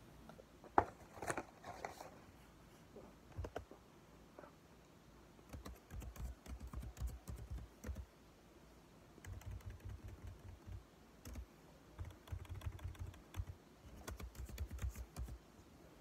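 A big mouthful of cornstarch being chewed with the mouth closed. It sounds as runs of quick, soft crunching clicks, each lasting a second or two with short pauses between, after a few sharp clicks in the first two seconds.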